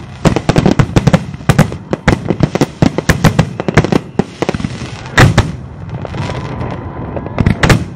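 Aerial fireworks bursting: a rapid, crackling run of many sharp bangs for the first half, then a single heavy boom about five seconds in and two more loud bangs near the end.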